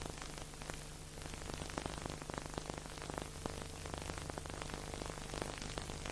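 Steady hiss peppered with dense crackles and clicks over a low, steady hum: old soundtrack surface noise with no music.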